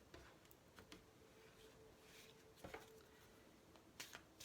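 Near silence with faint scattered clicks and light rustles of oracle cards being shuffled and handled.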